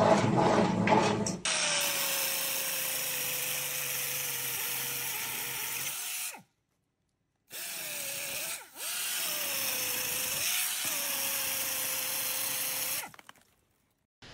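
A power tool's motor running under load: a steady whine with a hiss over it, its pitch sagging and recovering a few times. It stops for about a second midway and cuts off near the end, after a short rhythmic clatter at the start.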